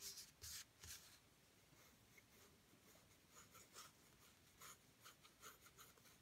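Faint scratching of a yellow wooden graphite pencil drawing on a sheet of paper. A few quick strokes come in the first second, then it goes quieter for about two seconds before a run of short strokes resumes.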